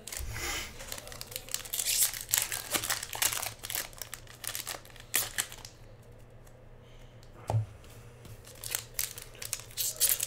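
Foil wrappers of hockey card packs being torn open and crinkled by hand: a busy run of sharp crackles with a lull a little past the middle, then more crackling near the end, with one soft knock in between.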